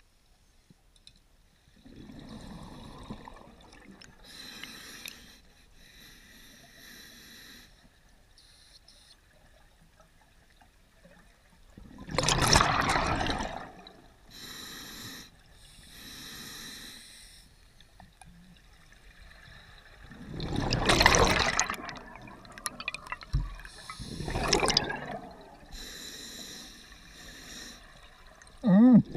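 A diver breathing underwater through a scuba regulator. Quieter hissing inhalations alternate with louder bursts of exhaled bubbles every few seconds.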